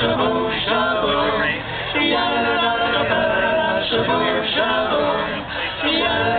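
Men's a cappella vocal group singing in close harmony, holding long chords with brief breaks between phrases about two seconds in and again near the end.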